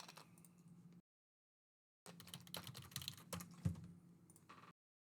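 Computer keyboard typing: quick runs of key clicks in two stretches, each cut off abruptly into dead silence.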